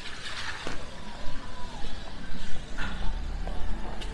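A taxi passing close on a wet street, its tyres hissing on the rain-soaked road, most strongly in the first second. A deeper rumble comes in about three seconds in.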